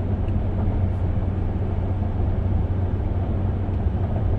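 Steady low drone of road and engine noise inside the cabin of a 2025 Ram 1500 Limited with the twin-turbo 3.0 L Hurricane inline-six, cruising at a constant speed.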